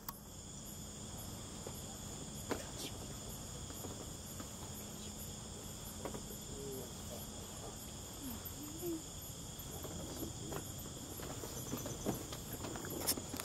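Night insects chirring steadily in a high, even drone, with a higher pulsing call repeating above it. A few sharp knocks break in, the loudest near the end.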